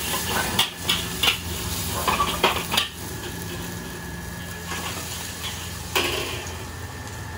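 Metal spatula clanking against a wok during stir-frying: a quick run of sharp strikes in the first three seconds and one more near the end. Under them is a steady low sizzle.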